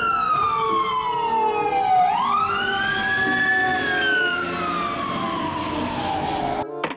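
Fire ladder truck's siren wailing over engine and road noise: the pitch falls slowly, sweeps back up about two seconds in, then falls slowly again. It cuts off abruptly near the end.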